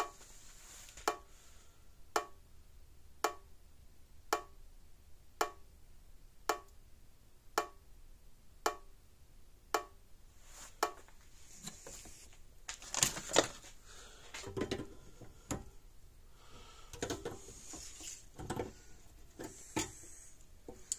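Hol-Dem Super Power 980 solid-state electric fence charger pulsing with a sharp snap about once a second, the pulse arcing across itself between parts inside the unit. From about halfway through, handling knocks and rustling join the pulses.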